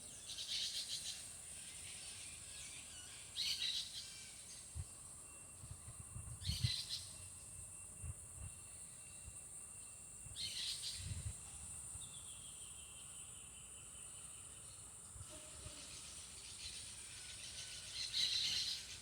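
Birds calling in short, buzzy bursts every few seconds over a steady high-pitched drone, with a few soft low thumps in the middle.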